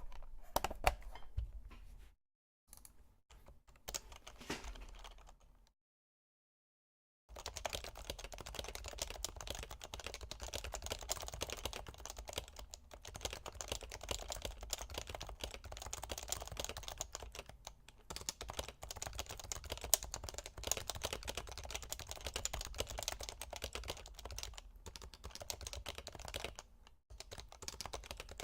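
Typing on a stock HHKB Pro 2 keyboard with Topre switches: a few short spurts of keystrokes broken by dead silent gaps in the first few seconds, then a fast, unbroken run of keystrokes.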